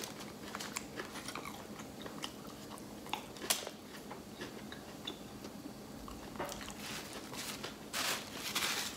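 A person chewing a mouthful of burrito and tortilla chips, with small crunches and mouth clicks throughout and a brief louder noise near the end.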